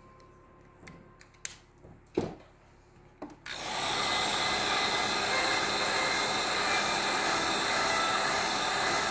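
Handheld heat gun switched on about three and a half seconds in, then blowing steadily with a fan whir. Before it, a few light clicks and knocks of handling.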